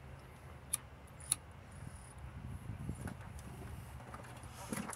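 Low, steady background rumble with a few sharp clicks, two of them close together about a second in and more near the end.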